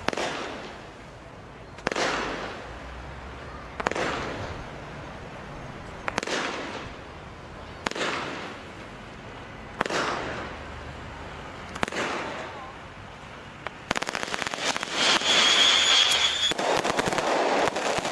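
Fisherman Fireworks BF1428 'Megadeath' firework going off shot by shot, about one every two seconds, each a sharp bang trailing off into a hiss. About fourteen seconds in it breaks into a louder, dense run of rapid crackling, with a steady high whistle for a second or so.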